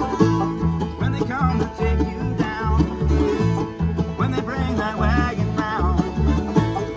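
Bluegrass string band playing an instrumental passage: banjo and guitar over bass notes on a steady beat, with a higher lead line sliding up and down in pitch.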